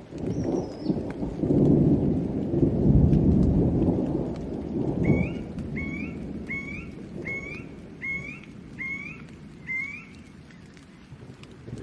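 Thunder rumbles over steady rain, loudest in the first five seconds. Then a bird calls seven times in an even series of short rising notes, about one a second, while the rain keeps falling.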